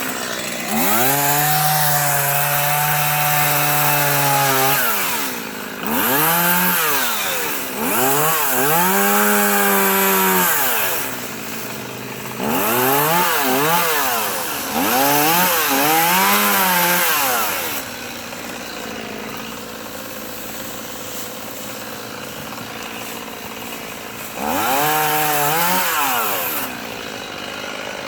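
Chainsaw revving up in repeated bursts of one to four seconds, its pitch rising and falling with each squeeze of the throttle, then idling steadily for several seconds in the second half before one more rev near the end.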